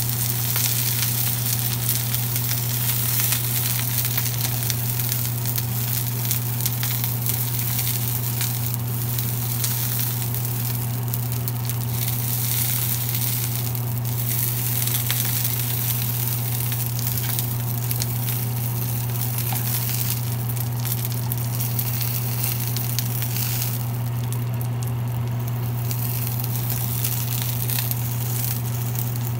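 Tomato wedges, dried ancho chiles and onion sizzling in oil in a nonstick frying pan as they toast. The sizzle is briefly fainter near the end, over a steady low hum.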